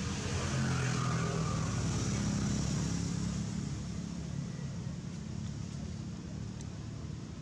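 A motor vehicle's engine running with a low hum that grows louder about half a second in and eases off after about three seconds, as if driving past, over a steady hiss.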